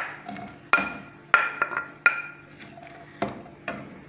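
Sharp clinks and knocks as chopped red onion is scraped and tapped off a ceramic plate into a frying pan, about eight irregular strikes, each ringing briefly.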